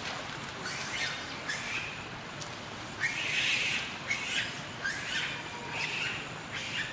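Infant macaque giving a string of short, high squeaky calls, a little over one a second, growing louder from about three seconds in: the calling of a baby left on its own.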